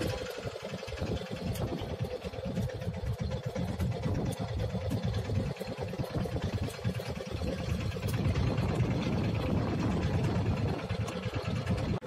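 Fishing boat's engine running steadily, a little louder from about eight seconds in.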